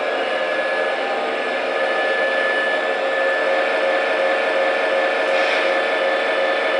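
MTH ProtoSound 2/3 model diesel locomotive's sound system playing its prime mover revved up to notch 8, the top throttle setting. It plays through the locomotive's small speaker as a steady, loud engine drone with a whine.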